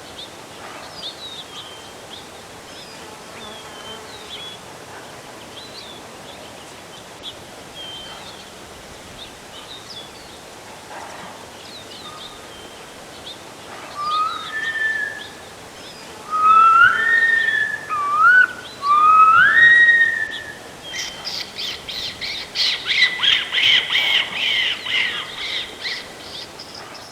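Wild birds chirping, short high calls scattered throughout. About halfway through come four loud rising whistled notes, then a dense burst of rapid, chattering calls over the last several seconds.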